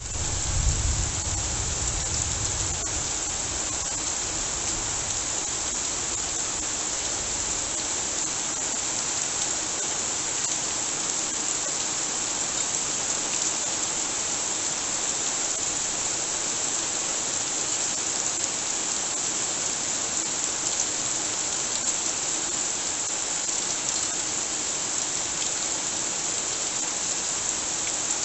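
Heavy rain falling steadily on a garden lawn and tree leaves, a dense, even hiss. A low rumble underneath fades out over the first several seconds.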